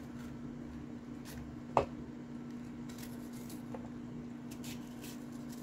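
A red bell pepper being pulled apart by hand and the pieces dropped into a plastic chopper bowl. There are a few faint crisp snaps and taps, with one sharper click a little under two seconds in, over a steady low hum.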